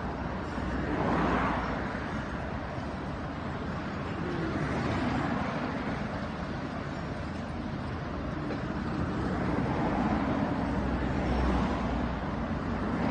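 High-reach demolition excavator working: its diesel engine running steadily under the crunch and rumble of concrete being broken away, the noise swelling several times.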